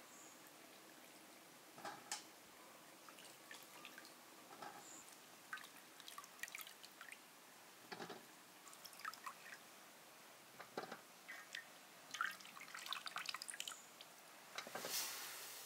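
Water dripping and splashing in small irregular bursts as white grapes are washed by hand in a bowl of water and lifted into a metal colander.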